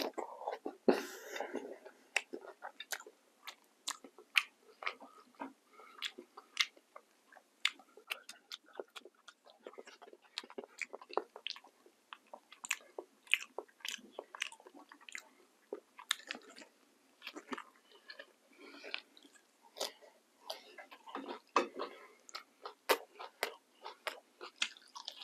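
Close-miked chewing and wet mouth sounds of a man eating rice and barbecued chicken with gravy by hand, with frequent sharp, irregular clicks of lips and tongue.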